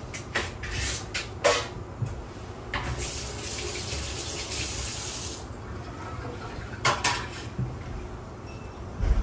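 A kitchen tap runs for about two and a half seconds, starting about three seconds in and shutting off sharply, with a few short knocks and clicks before and after it.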